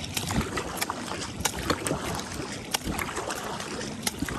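Kayak paddle strokes in river water: the blades dipping and pulling, with a steady wash of water and many small splashes and drips falling off the blades.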